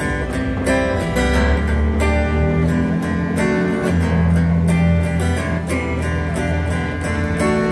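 Acoustic guitar strummed in a steady rhythm, starting a folk protest song.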